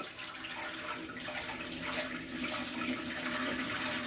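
A thin stream of water pouring into the empty center chamber of a glass sump tank and splashing on its glass bottom, growing gradually louder.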